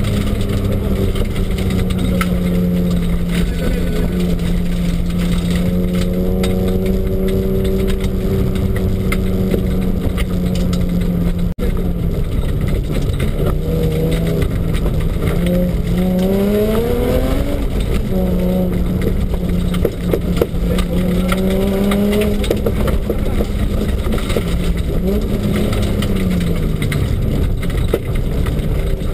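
BMW rally car's engine heard from inside the cabin on a stage, its note held fairly level for about the first ten seconds, then rising and falling several times as the driver works the throttle, over constant road and tyre noise.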